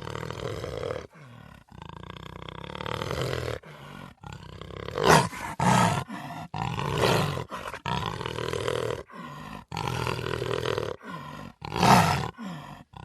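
A big cat growling in a string of short, rough bursts, with three louder roars about five, seven and twelve seconds in. Each burst cuts off suddenly.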